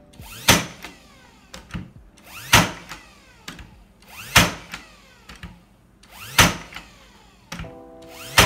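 Craftsman V20 cordless 16-gauge finish nailer firing nails into a wooden board, five sharp shots about two seconds apart as the gun is moved along, with lighter clicks between shots.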